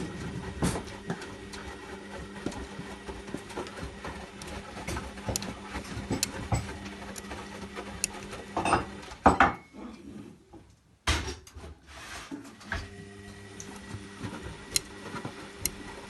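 Zanussi Lindo 100 washing machine drum tumbling in its wash cycle: a steady motor hum with frequent light clicks and knocks. About nine seconds in the hum stops with a loud knock, then starts again about three seconds later.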